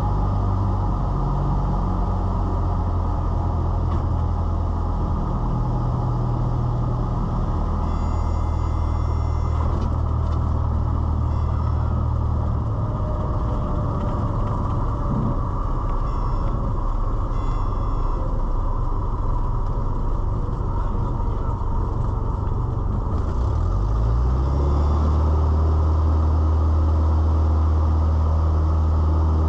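Cessna 172's piston engine and propeller heard in the cockpit, running at low power during the landing roll, then throttled up with a rising pitch about three-quarters of the way through and holding a louder, steady note: full power being added for the next takeoff in the pattern.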